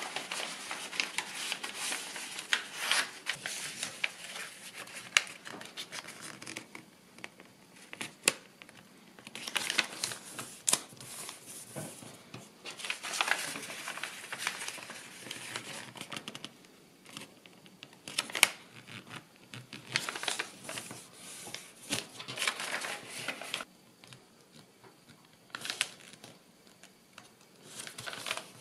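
Brown kraft paper rustling and crinkling as hands fold and crease it, in irregular bursts with short quiet pauses and a few sharp clicks.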